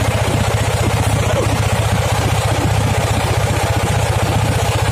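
A small engine running steadily with a rapid, even putter.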